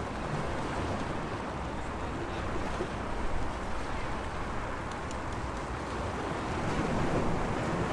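Sea waves washing steadily against the waterfront, swelling slightly in level every few seconds.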